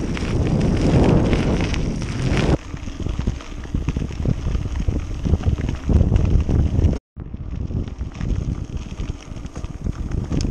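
Wind rushing over the microphone of a bike-mounted camera, with the mountain bike's tyres rolling over a dry dirt and gravel path and frequent small rattles and knocks from the bike. The sound changes abruptly about two and a half seconds in and cuts out for a moment about seven seconds in.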